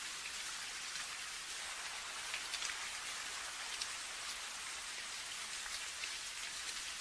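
Steady rain falling, a dense hiss with many individual drops ticking on a surface.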